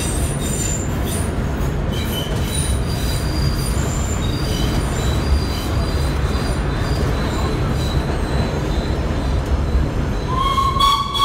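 Vintage subway train running through a tunnel and into a station, with a steady low rumble and scattered high-pitched wheel squeals. A louder, lower squeal starts about ten seconds in as the train pulls along the platform.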